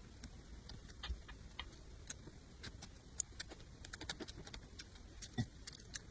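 Close-up eating sounds: faint, irregular wet mouth clicks and crisp chewing noises, a few a second, with one duller knock about five seconds in.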